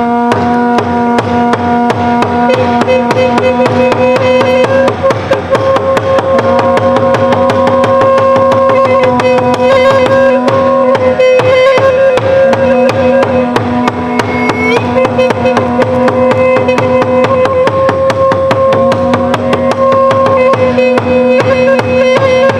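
Traditional-style music with fast, steady drumming under a long-held melody line and a lower drone tone that drops out and comes back several times.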